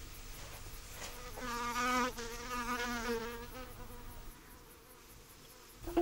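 A flying insect buzzing: a wavering hum with overtones that swells about a second and a half in and fades out by about four seconds in.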